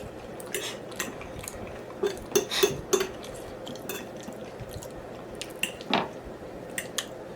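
Close-miked mukbang eating: wet mouth smacks and chewing clicks, with a cluster of louder ones about two to three seconds in and another near six seconds.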